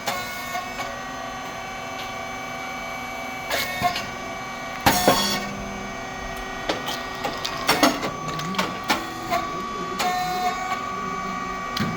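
Rice cake machine SYP4506 running: a steady hum from its motor and hydraulic pump, many clicks and knocks from the moving moulds, and a short hissing burst about five seconds in.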